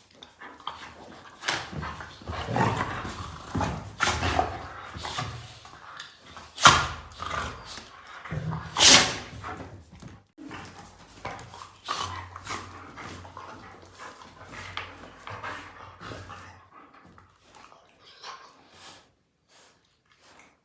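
Pet dog barking in a string of sharp barks, the loudest about seven and nine seconds in, with quieter vocal sounds between them.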